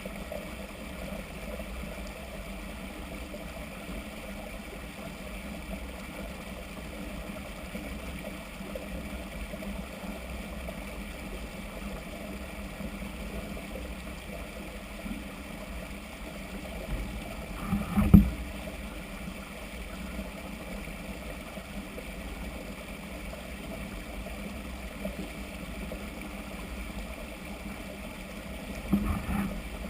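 Steady low rumble with a hiss over it, broken by two louder knocks, one about two-thirds of the way in and another near the end.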